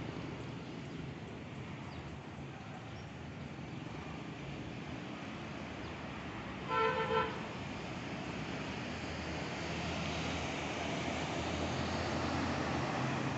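Steady road traffic noise, with a vehicle horn giving a short honk about halfway through. The traffic grows a little louder in the second half.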